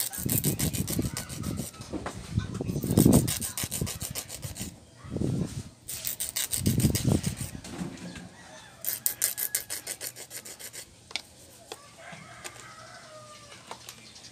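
Hand nail file rasping back and forth across the tips of soft gel nail extensions in quick, rhythmic strokes, in runs of a few seconds with short pauses. The filing stops a few seconds before the end.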